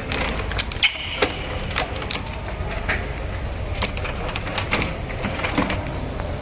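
Steady low hum of a metal lathe running, with scattered sharp clicks and knocks of metal on metal and a brief high ring about a second in.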